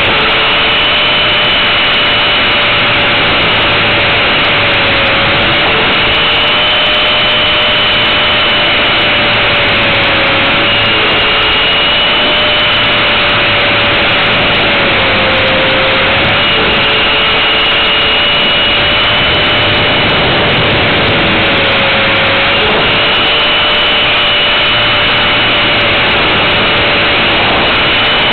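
450 Pro electric RC helicopter in flight, heard close up from a camera mounted on it: a loud, steady motor and gear whine over heavy rotor and air rush, its pitch wavering and dipping slightly as it manoeuvres.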